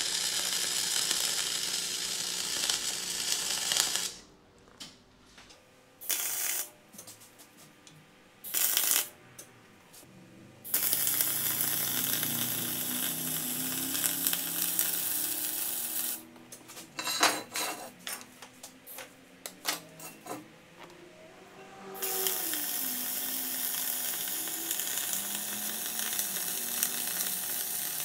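MIG welder arc crackling and hissing in three runs of several seconds each. Between the runs there are quieter pauses with brief bursts and scattered clicks.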